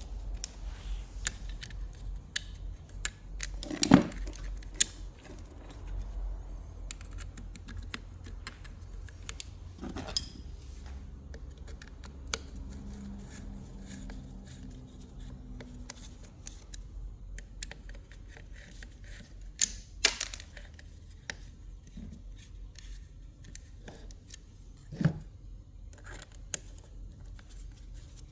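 Small metal parts and hand tools being handled on a workbench: scattered clicks and clinks over a low hum, with sharper knocks about four seconds in and again near ten, twenty and twenty-five seconds.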